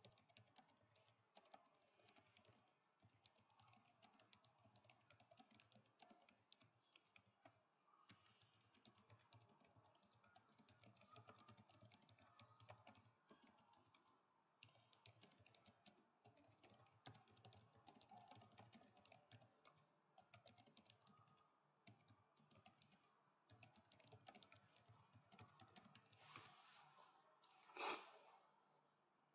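Faint typing on a computer keyboard in quick runs with short pauses, and one louder click near the end.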